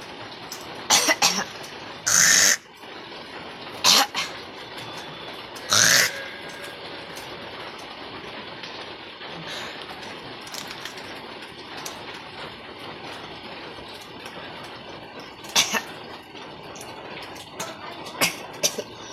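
A person forcing out harsh coughs and retching noises in short bursts, several in the first six seconds and a few more near the end. A steady hiss of heavy rain runs under them.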